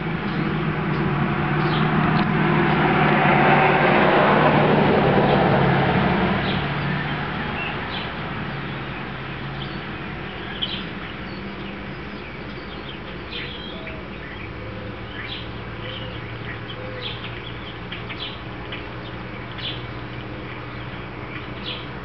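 Outdoor ambience: a passing engine noise swells over the first few seconds and fades away, with small birds chirping repeatedly throughout.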